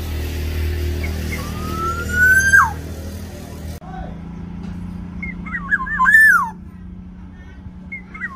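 Black-naped oriole (kepodang) calling: a long rising whistle that drops sharply at its end, then a fluty, looping whistled phrase that ends in a falling note, with another phrase starting near the end. A low steady hum runs underneath.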